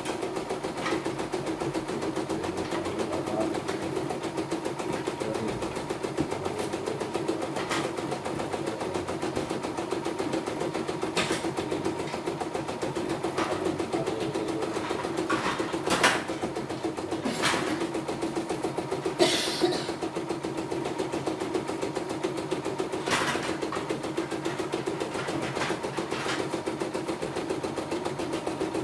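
CNY E960 computerized embroidery machine stitching at a steady fast pace, its needle bar and hoop drive running as one even mechanical hum. Several sharp clicks stand out in the middle of the run. It runs smoothly after a repair that cured its jammed, knocking drive.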